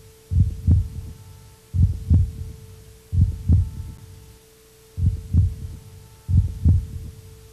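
Heartbeat sound effect: a slow run of low lub-dub double thumps, five pairs about a second and a half apart, over a steady humming tone.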